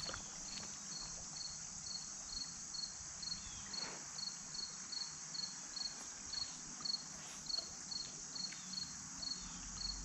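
Insects chirping: a steady high-pitched chorus, with one chirp repeating evenly about two and a half times a second.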